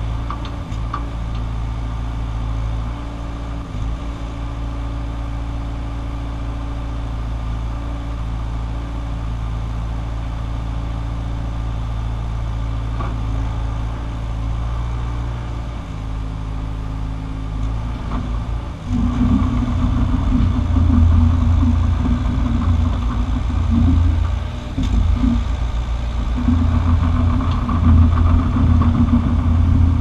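Case CX60C mini excavator's diesel engine running steadily while the boom and bucket are worked. A little over halfway through it gets louder and starts to pulse as the hydraulics come under load.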